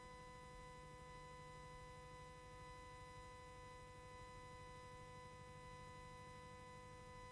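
Near silence: only a faint, steady hum and hiss, with no other sound.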